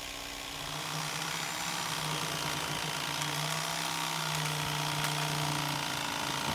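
An engine running steadily with a constant hum.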